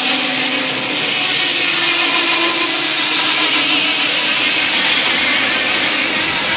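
Sawmill at work: a loud, steady mechanical whir with a faint hum underneath.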